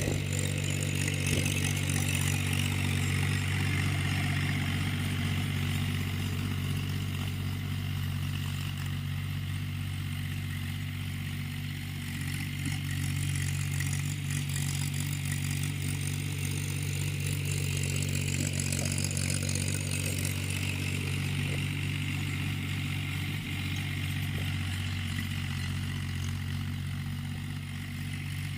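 Tractor's diesel engine running steadily under load while ploughing a field, with small dips in level.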